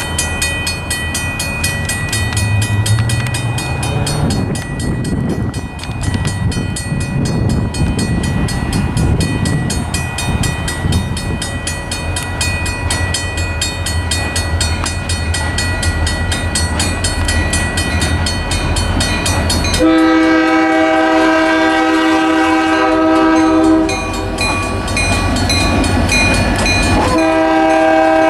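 Reading and Northern GP39RN diesel locomotives approaching: a low engine rumble under a steadily ringing bell, then two long blasts of the multi-chime air horn, the first about twenty seconds in lasting some four seconds, the second starting about three seconds after it.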